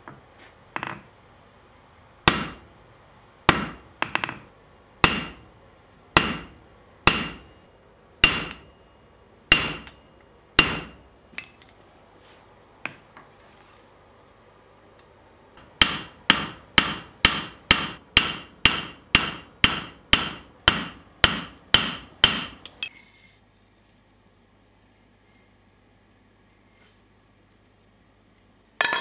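Hand hammer striking hot steel on an anvil, flattening a paddle-shaped piece at the end of a bar. First comes a series of blows about one a second; after a pause, a faster run of about fourteen blows, roughly two a second, each with a short metallic ring.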